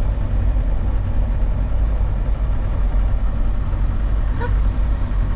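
1997 Land Rover Defender's engine running as the truck rolls slowly, heard from inside the cab as a steady low drone.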